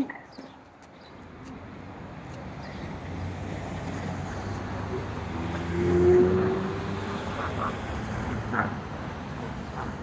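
Road traffic passing close by. A pickup truck approaches and goes by about six seconds in, the loudest moment, and more vehicles follow behind it. A short sharp knock right at the start.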